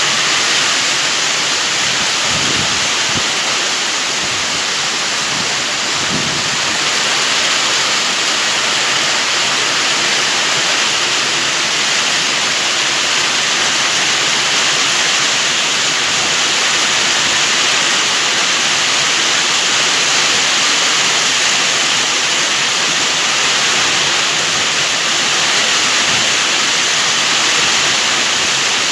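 Heavy rain pouring down steadily, a loud, even downpour.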